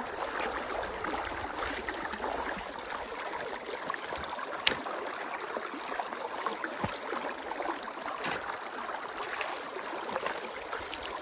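Irrigation water flowing and gurgling through an earthen field ditch while a shovel scrapes up and dumps wet soil to build a dirt dam that shuts the water out of one field section; one sharp knock about four and a half seconds in.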